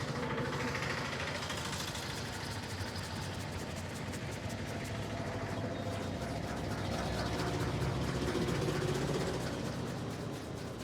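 Street traffic: vehicle engines running, heard as a steady, continuous hum.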